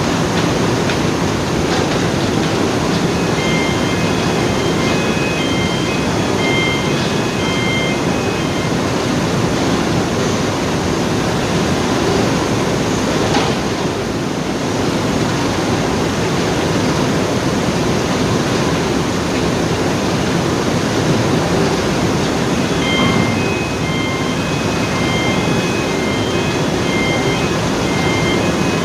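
Loud, steady roar of heavy industrial machinery. Two spells of short, high beeps or chirps repeat quickly over it, one a few seconds in and one near the end.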